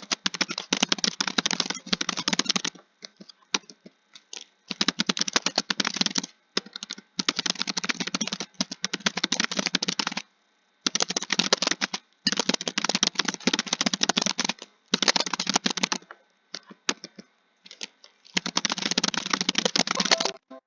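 Fast typing on a computer keyboard: runs of rapid key clicks lasting a second or three each, broken by short pauses and one longer pause of about two seconds.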